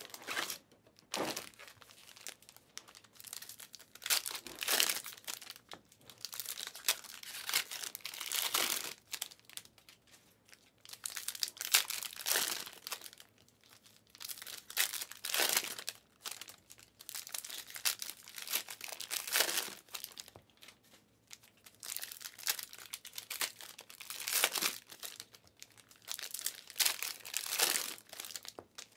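Panini Prizm basketball card pack wrappers being torn open and crinkled by hand: a run of irregular rustling and crackling bursts with short pauses between them.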